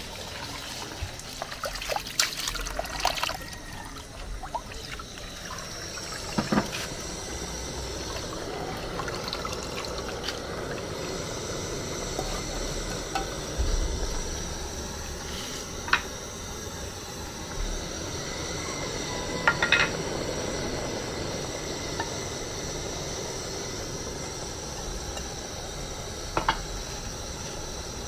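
Pot of vegetable soup cooking, its liquid bubbling and sloshing steadily, with a few sharp knocks against the pot scattered through.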